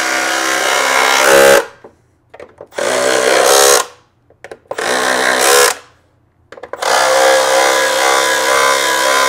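Cordless impact driver hammering in four runs, the last and longest about three seconds, driving thread-forming screws that cut their own threads into the blower's engine mount. They are so tight that the driver sounds almost like it is stripping them.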